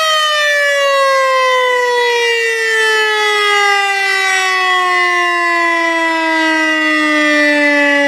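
Loud civil-defence warning siren winding down: its steady high wail starts at once to fall in one long, slow, smooth glide of pitch.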